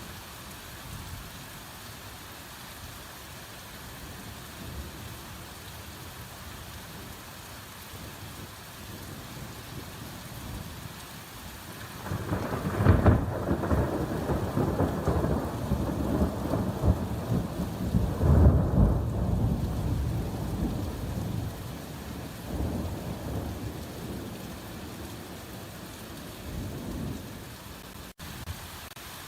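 Steady hard rain falling in a forest. About twelve seconds in a loud rolling rumble of thunder swells up, peaking twice before dying away, with a weaker rumble later on.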